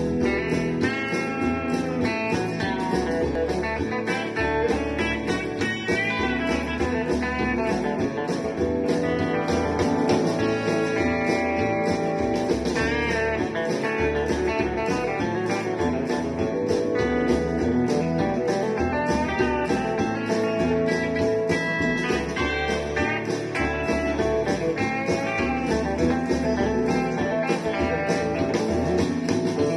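Electric guitar played through an amplifier in country chicken-picking style: a continuous run of quick, snapped single notes and licks.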